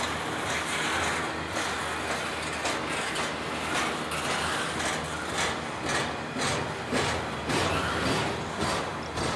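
Intermodal freight train's trailer-laden flatcars rolling past close by: a steady rumble of wheels on rail with repeated sharp clacks from the wheels, coming more often in the second half.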